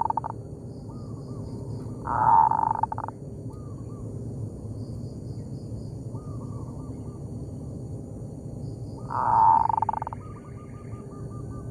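Zebra doves (perkutut) calling back and forth. Loud, rough coo phrases close by, one trailing off at the start, one about two seconds in and one about nine seconds in, alternate with fainter series of short arched coo notes from another dove, which run quickly together near the end.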